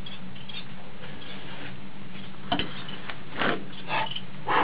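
A few short light clicks and knocks, spaced irregularly in the second half, over a steady low hum.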